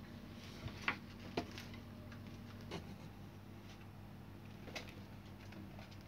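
A few sharp plastic clicks and taps as a hair dryer's plastic housing is handled and pressed shut, over a faint steady low hum.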